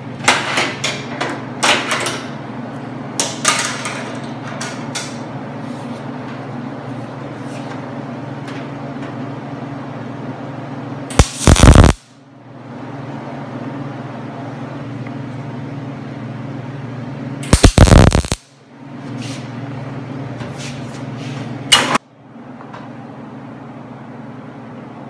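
MIG welder laying short tack welds on the sheet-steel fender: two loud, crackling bursts of under a second each, about six seconds apart, then a brief third one. A few sharp metal clicks and taps come before them, over a steady low hum.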